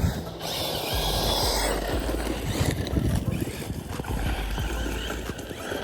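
Rlaarlo DSK-8 1/8-scale brushless RC buggy running on dirt, its motor whine rising and falling with the throttle over a heavy low rumble.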